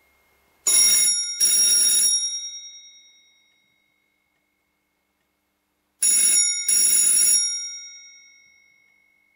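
Electromechanical ringer of a 1958 RWT CB-49 rotary telephone ringing, its clapper rattling against two metal bell gongs. It rings twice in quick succession, and the double ring comes again about five seconds later, each time dying away slowly.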